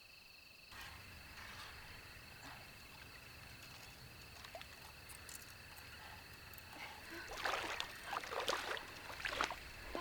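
Steady high-pitched chorus of calling insects, with several louder sudden noises clustered about seven to nine and a half seconds in.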